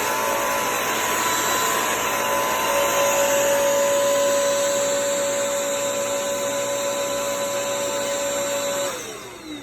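Bissell CrossWave Pet Pro wet-dry vacuum running loud with a steady motor whine. Near the end it is switched off and the whine falls in pitch as the motor spins down.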